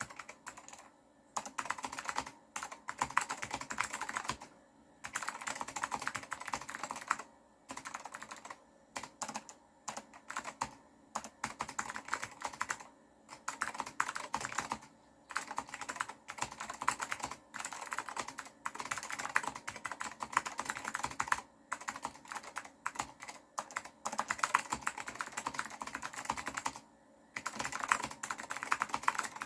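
Typing on an Apple M0116 keyboard fitted with blue Alps switches: fast runs of sharp clicky keystrokes, coming in bursts of a second or few with brief pauses between them.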